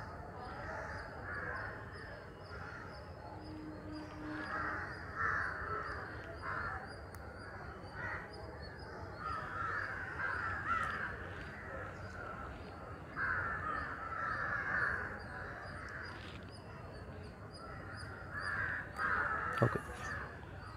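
Crows cawing repeatedly in harsh runs of calls, with a single sharp knock near the end.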